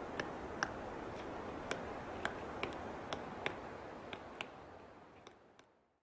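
A woodpecker making short, sharp clicks at irregular intervals, about two or three a second, over a steady background hiss. The sound fades out near the end.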